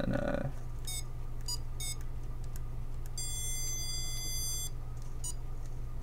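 HP 42S calculator's beeper giving a few short high beeps as its keys are pressed in the keyboard self-test, with one longer tone of about a second and a half midway. A steady low hum runs underneath.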